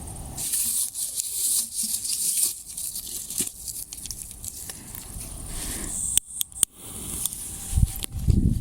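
Firework fuse burning with a hissing, crackling sputter ahead of a large display shell. Low, heavy thumps begin near the end.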